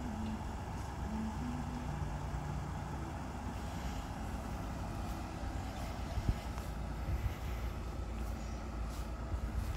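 A Ford Transit van's engine running at low speed as the van idles and creeps forward: a steady low rumble with a few small knocks in the second half.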